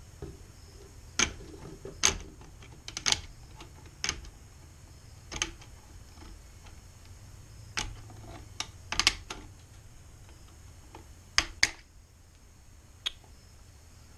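Tin snips cutting hexagonal metal grille mesh along the edge of a plastic grille insert: about a dozen sharp snips at irregular gaps, a few in quick pairs.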